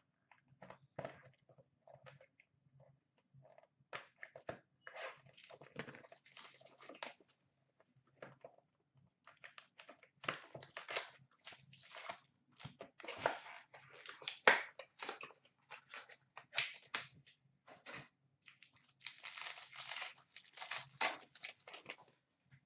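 A small sealed cardboard hockey-card box and its wrapping being torn open by hand, with irregular crinkling, tearing and rustling. The rustling is busiest around the middle and again near the end.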